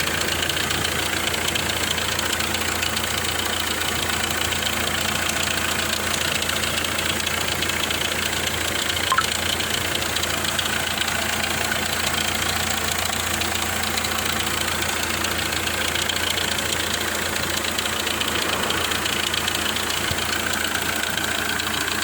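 Hyundai i20 diesel engine running steadily at idle with a knocking that the mechanic puts down to the injector nozzles, with one brief sharp click about nine seconds in.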